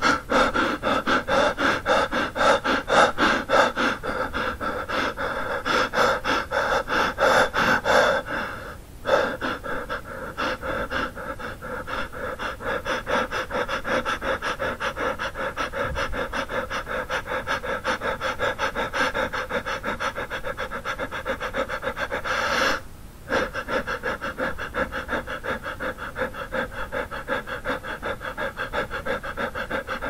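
A frightened man breathing very fast: quick, even panting breaths in and out, a little louder over the first eight seconds or so. The breathing breaks off briefly about nine seconds in and again about twenty-three seconds in.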